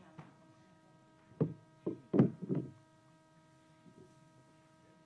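Steady electrical hum at several pitches, with a brief cluster of muffled bumps about a second and a half to two and a half seconds in.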